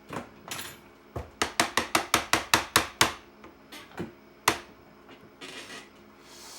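IBM Model M buckling-spring keys clicking as a key is tapped over and over to test it: a fast run of about a dozen sharp clicks, roughly seven a second, then a few single clicks, one of them loud.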